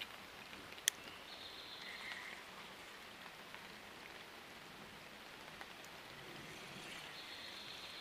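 Light rain falling on a creek's surface, a faint steady hiss. A sharp click about a second in, and a faint high, thin tone that comes and goes twice.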